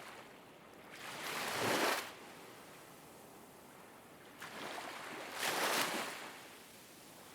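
Ocean waves washing onto a shore, two surges, each swelling and then dropping away, over a low steady hiss.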